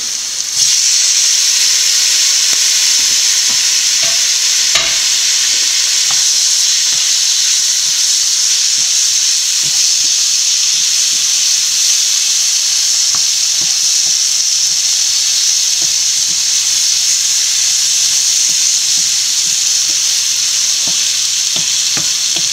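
Chopped tomatoes dropped into hot oil with spiced onions and capsicum in a nonstick frying pan: the sizzle jumps louder about half a second in and then runs steadily. A wooden spatula stirring gives light scrapes and taps against the pan.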